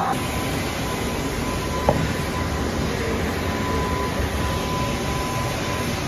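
Steady machine-shop noise: a low mechanical rumble with a thin, steady whine running under it, and a single sharp click about two seconds in.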